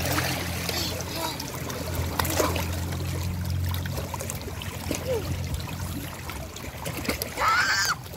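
Shallow seawater splashing and sloshing around children playing in it among rocks, with scattered small splashes. A child's voice calls out briefly near the end.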